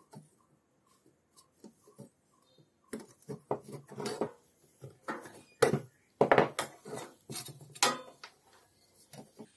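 Metal parts clinking and clattering as they are handled: a few light clicks at first, then a busy run of knocks and clinks for about six seconds.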